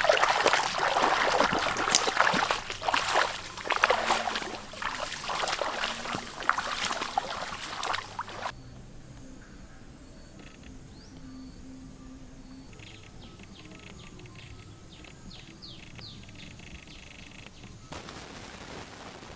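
Bare feet wading and splashing through shallow muddy water, with many quick sloshes, for about eight seconds. It then cuts off suddenly to a much quieter outdoor background with a few faint high chirps.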